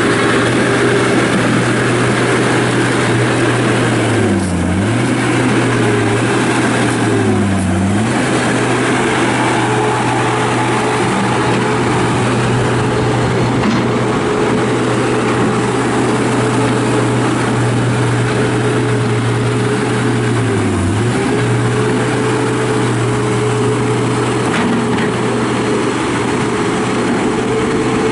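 2008 John Deere CT332 rubber-track skid steer's diesel engine running at high revs. The pitch dips briefly and recovers about four seconds in, again around seven seconds, and once more about twenty-one seconds in.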